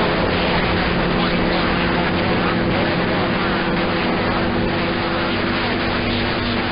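Receiver audio of a crowded 11-meter AM channel on 27.025 MHz, several signals on top of one another: a steady wash of static and garbled noise. Several steady low whistles of heterodyning carriers run through it.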